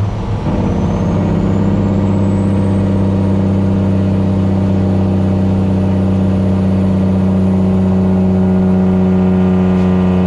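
Cummins ISX diesel engine of a heavily loaded cattle truck pulling hard, running loud and steady. A thin high whistle rises over the first few seconds and then holds.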